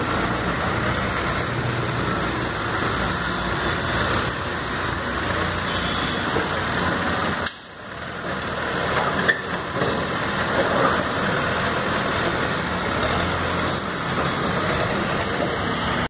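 Diesel engine of an Escorts backhoe loader running steadily while its front bucket works a pile of brick rubble, with road traffic behind it. The sound drops out for a moment about halfway through, and a single sharp knock comes shortly after.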